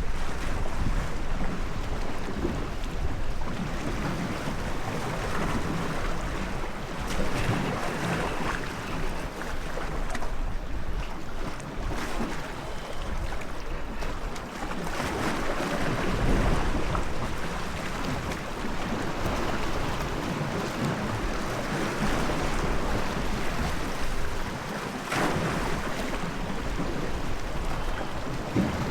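Sea waves and wind, with wind buffeting the microphone: a steady, rough rushing that swells and eases without pause.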